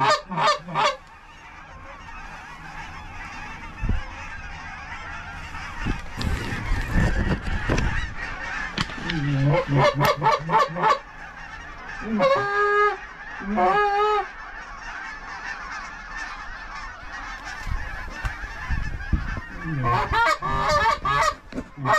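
Canada geese honking in several separate bouts: a quick run of honks at the start, another about ten seconds in, two longer drawn-out honks just after, and a last run near the end.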